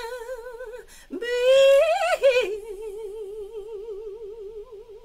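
A woman singing a slow gospel praise song solo, holding long notes with wide vibrato. A louder rising note comes about a second in, then one long held note that fades out near the end.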